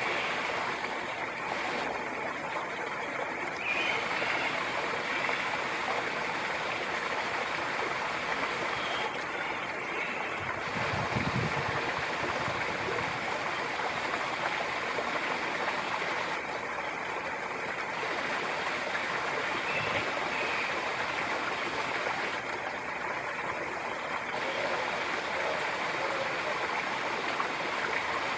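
Steady running water, like a stream or small waterfall pouring, with a brief low rumble about eleven seconds in.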